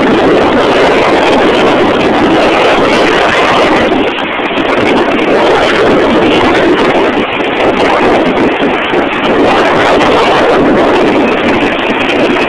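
Loud, steady rush of UH-60 Black Hawk rotor downwash and wind battering the microphone of a camera hanging on a rope beneath the helicopter, with the helicopter's noise mixed in. It dips briefly about four seconds in.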